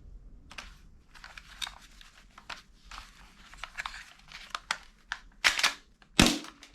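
Irregular small clicks and crinkling handling noises, with two louder sharp clacks near the end.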